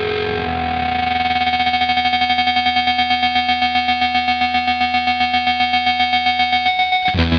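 Distorted electric guitar holding a sustained note through a tremolo effect; about a second in, its volume starts pulsing evenly at about six pulses a second. Near the end a new, lower chord comes in.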